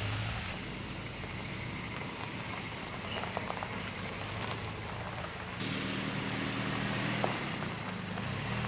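An engine running steadily under a rushing noise, its low hum growing louder about five and a half seconds in.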